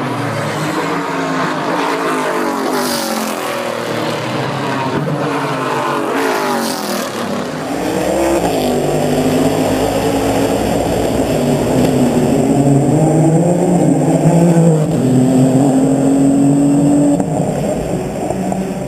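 Race car engines at high revs, several at once, their pitch rising and falling as they accelerate, shift and pass. About halfway through it settles into fewer, slower-rising engine notes.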